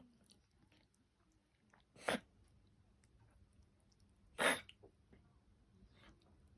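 Elderly miniature dachshund sneezing twice, two short sharp bursts about two and a half seconds apart, the second louder, with faint snuffling between. The sneezing comes from nasal congestion and discharge, which the owner takes for pus from periodontal disease draining through the nasal passages.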